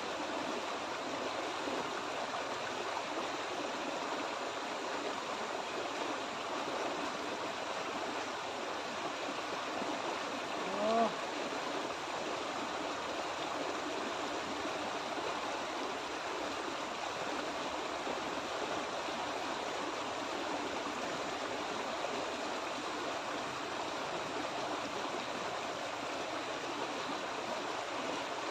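Small rocky stream rushing steadily over a low cascade of white water. About eleven seconds in, a brief rising voice-like sound rises above the water.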